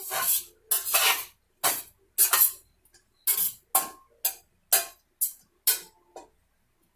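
Kitchen utensil working a skillet of salted, halved grape tomatoes: about a dozen short rasping strokes, roughly two a second, that stop shortly before the end.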